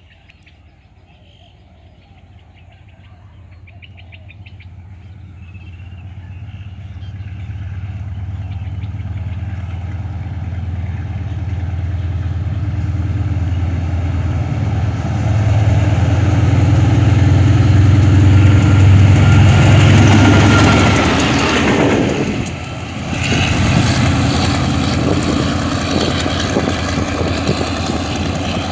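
SRT GEA-class GE diesel-electric locomotive running light, its engine drone growing steadily louder as it approaches. It is loudest about 16 to 21 seconds in, with wheels clattering on the rails as it passes close. The engine stays loud but a little lower as the locomotive moves away.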